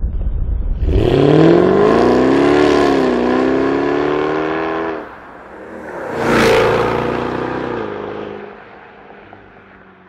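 Jaguar F-Type V8 S's supercharged 5.0-litre V8 accelerating hard, its pitch rising from about a second in, easing slightly and climbing again before it cuts off at about five seconds. The car then passes close, loudest about six and a half seconds in, and fades away with a falling pitch.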